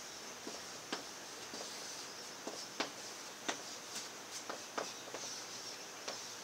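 Chalk tapping on a blackboard while numbers and letters are written: a series of faint, irregular clicks over a steady low hiss.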